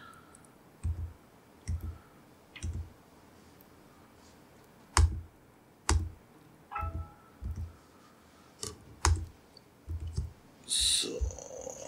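Laptop keyboard keys pressed one at a time, about once a second, heard as dull taps with a few sharper clicks. A short rustling sound comes near the end.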